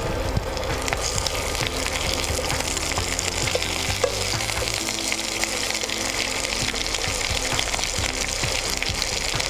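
Curry leaves sizzling and crackling in hot oil in a frying pan.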